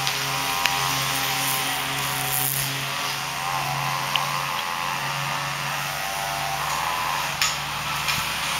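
Stand-up commercial lawn mower, which the uploader takes for a Great Dane, running steadily under its operator: a constant engine drone with a higher whine over it.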